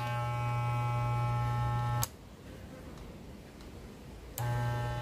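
Corded, mains-powered hair clipper running with a steady buzzing hum, on test after its faulty on/off switch was replaced with a mini rocker switch. The hum cuts off with a click about two seconds in and starts again with a click a couple of seconds later.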